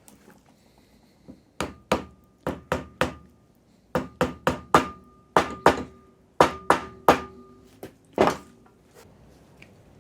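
Hammer tapping a new dust seal into a Triumph TR7 front hub: about fifteen sharp metallic strikes in short runs of two to four, each leaving a brief ring.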